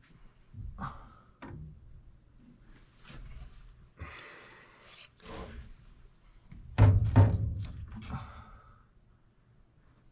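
Knocks and clunks of hands and tools working inside a gas furnace cabinet, with a brief rustle midway and the loudest pair of thumps about seven seconds in.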